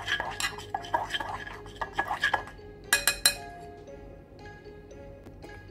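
A chopstick stirring and scraping quickly around a small non-stick saucepan of molten sugar and baking powder foaming into dalgona candy, with a few sharp knocks against the pan about three seconds in. Soft background music then takes over.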